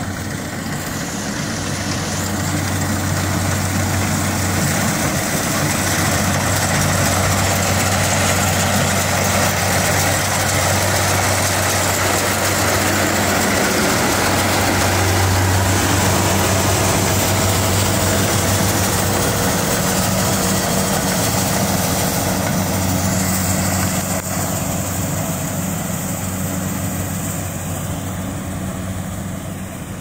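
Kubota rice combine harvester running steadily while harvesting: a deep diesel engine hum under the wide, even whir of its cutting and threshing machinery. It grows louder over the first several seconds and eases off a little near the end.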